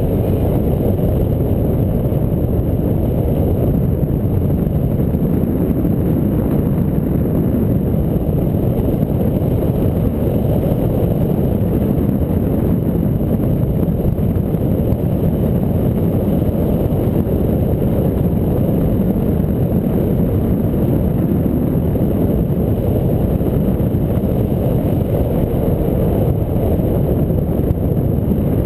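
Wind noise on a GoPro's microphone in flight: airflow in a 14–17 mph wind makes a steady low rumble.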